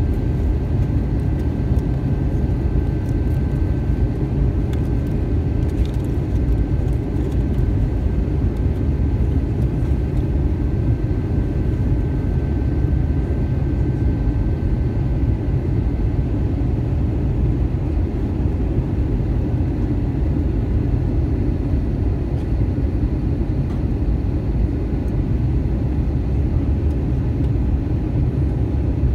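Steady cabin noise inside an Airbus A320 on descent: a low, even rumble of airflow and the wing-mounted engines. A faint high steady tone runs underneath and fades out about halfway through.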